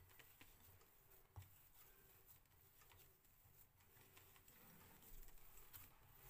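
Near silence, with faint scattered pats and ticks of hands kneading soft gram-flour dough in a steel bowl.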